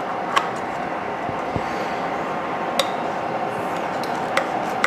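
Kitchen scissors cutting through a pan-fried green onion pancake, with about four sharp clicks and clinks of the blades against the plate, over a steady background hum.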